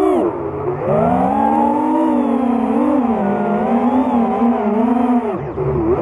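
A 5-inch FPV racing quadcopter's four Racerstar BR2205 2600kv brushless motors with Dalprop twin-blade props, whining as heard from the onboard GoPro on the frame. The pitch rises and falls with throttle, drops sharply about half a second in and again near the end as the throttle is cut, then climbs back.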